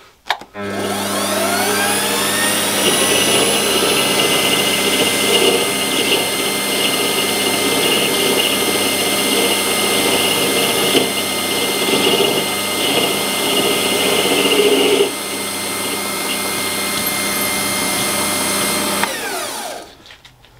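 Warco WM180 mini lathe starting up with a rising whine and running steadily while its tool takes a turning cut along a brass part. The cutting noise stops about 15 seconds in, and the motor runs a few seconds longer before winding down and stopping near the end.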